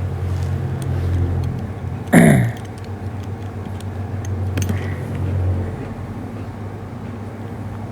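Steady low rumble of a motor vehicle's engine and road noise heard from inside. About two seconds in comes a brief loud sound that drops quickly in pitch.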